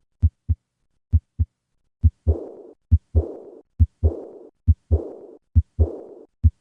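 Heart sounds at about 65 beats a minute, each beat a lub-dub pair. The first two beats are clean. From about two seconds in, each second heart sound is followed by a blowing murmur that fades away through diastole: the diastolic decrescendo murmur of aortic regurgitation.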